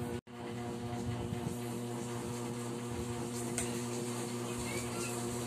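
Steady electrical hum, a mains-type buzz made of several steady tones. The sound cuts out briefly about a quarter second in.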